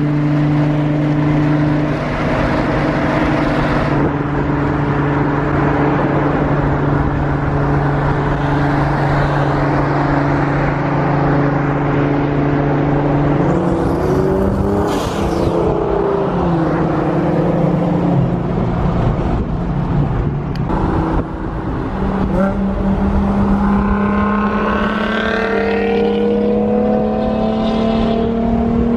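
Cars driving at highway speed: a steady engine drone over road and wind noise, heard from a moving car. Over the last few seconds an engine rises in pitch as it accelerates.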